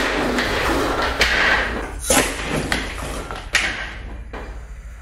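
Blast of compressed air as an oversized Nerf gun fires at 80 psi, then a heavy solid-core dart hitting a cinder block and breaking it, with several separate thuds as pieces fall. The sound dies away near the end.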